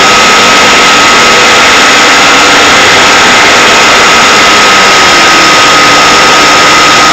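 Loud, steady hiss with a constant high-pitched whine, picked up by the onboard audio of an RC glider's FPV camera in flight.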